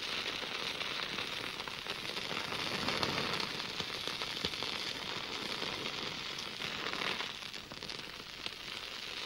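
A steady crackling hiss, a dense stream of tiny crackles, a little louder around three seconds in.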